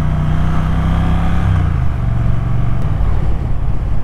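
Triumph Thruxton R's 1200 cc parallel-twin engine running under way, heard from on the bike. The engine note is steady, then drops in pitch about a second and a half in as the revs fall, and holds lower.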